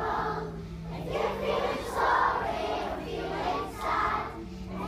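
A group of young schoolchildren singing together in a hall, in short phrases that swell about once a second.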